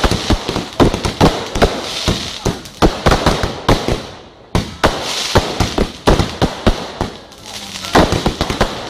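Fireworks display: rapid, loud volleys of bangs from aerial shells and firecrackers, mixed with crackle and fizzing hiss. The barrage thins briefly about four seconds in, then picks up again with a sharp bang.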